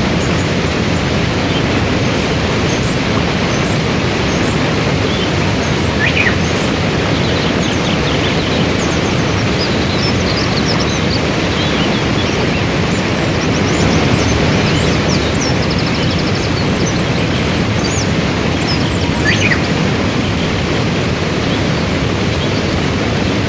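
Waterfall and river rapids rushing steadily, with small birds chirping a few times over the water, most clearly about six seconds in and again near twenty seconds.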